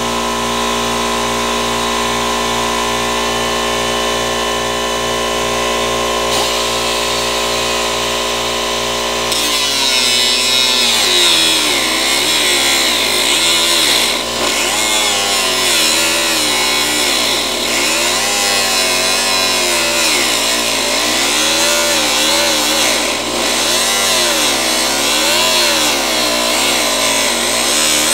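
Handheld power tool running continuously on bodywork. It holds a steady pitch at first, then from about nine seconds in its pitch repeatedly dips and recovers as it is pressed into the work and eased off.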